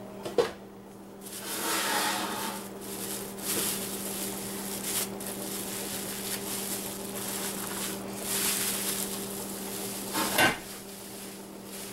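Plastic wrap crinkling and rustling as a rub-coated pork butt is unwrapped and lifted off it, with a sharp knock about half a second in and another near the end. A steady low hum runs underneath.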